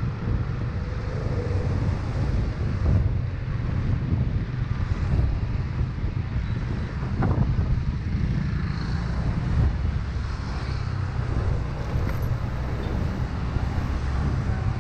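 Outdoor city ambience: a steady low rumble of traffic, with wind on the microphone.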